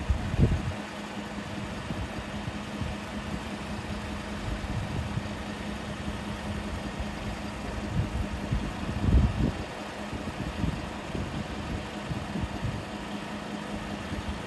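2007 Volkswagen Touareg V10's air suspension compressor running with a steady hum. Two brief low rumbles come just after the start and again about nine seconds in.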